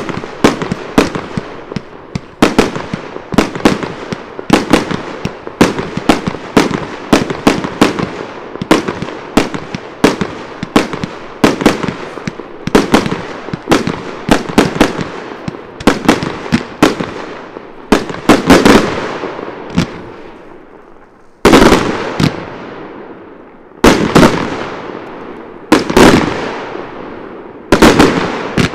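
Aerial firework shells bursting in a rapid string of sharp bangs, several a second. About two-thirds of the way in the pace slows to single, louder bursts roughly every two seconds, each fading out in a long tail.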